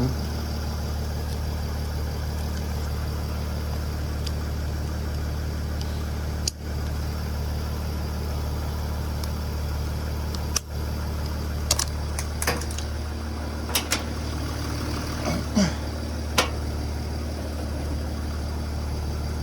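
Mercedes-Benz C-Class W204 engine idling steadily, running again after its no-crank CAN-bus short was repaired. A few sharp clicks come in the second half.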